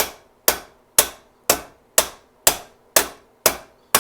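Hammer striking metal in a steady rhythm, about two sharp blows a second, each one ringing briefly.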